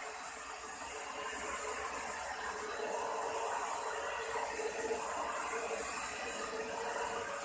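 Keromee 2-in-1 cordless handheld vacuum cleaner running steadily: an even hiss of motor and airflow with a steady whine.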